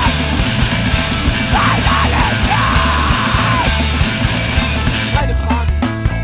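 Loud, heavy hardcore punk music: distorted guitars and drums under yelled, screamed vocals. About five seconds in, the dense wall of guitar and cymbal noise drops away, leaving bare drum hits and bass notes.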